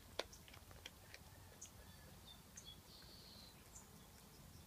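Faint, sparse crunching clicks of a cat chewing a freshly killed rat, bones cracking between its teeth; the sharpest crack comes just after the start.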